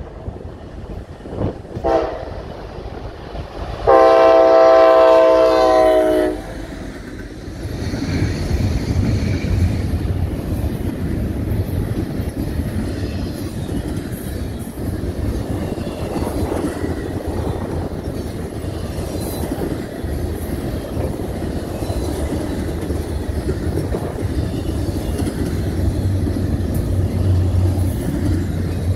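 Freight-train locomotive air horn sounding two short toots and then one long, loud blast about four seconds in. Then the CSX double-stack intermodal train rolls past with a steady rumble of its well cars' wheels on the rails.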